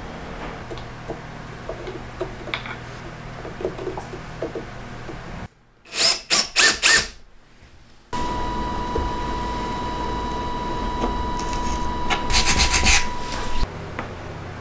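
Wood rubbing with light knocks as a power planer is slid and set on a plywood jig, then four short, loud scraping strokes. About eight seconds in, a cordless drill starts with a steady whine, bites into plywood with louder rasping strokes near the end, and stops.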